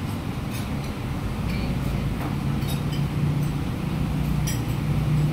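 A vehicle engine running steadily with a low hum that grows louder from about a second and a half in. Occasional light clinks of spoons and forks on plates sound over it.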